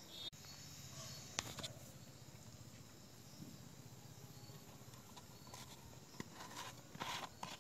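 Faint handling sounds: a few soft clicks and knocks as an empty plastic water bottle is handled beside a rocket firecracker on a concrete floor, with a short cluster near the end, over a quiet background.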